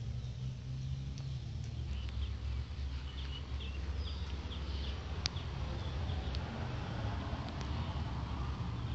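Small birds chirping in short, scattered calls over a steady low rumble, with a couple of sharp clicks in the middle.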